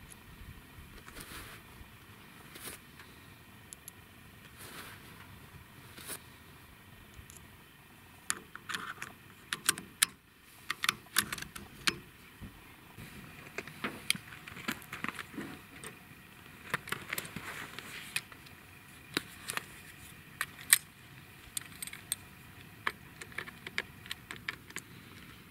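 Sharp metallic clicks and light rattles as a Daystate Delta Wolf air rifle and its .177 rotary pellet magazines are handled and loaded. The clicks are sparse at first and come thick and fast from about eight seconds in.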